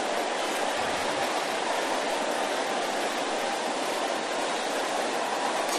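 A large congregation praying aloud all at once: a steady wash of many overlapping voices with no single voice standing out.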